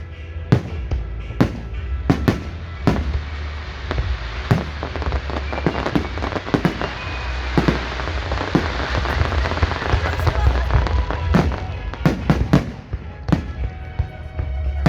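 Fireworks display: repeated sharp bangs of shells bursting overhead, thickening into a dense stretch of crackling in the middle before single bangs return near the end.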